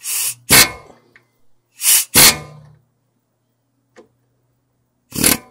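Hammer drill hammering at a rear brake caliper guide pin in five short bursts, with a faint low hum between them. The pins are seized in the caliper, gunked up and stuck.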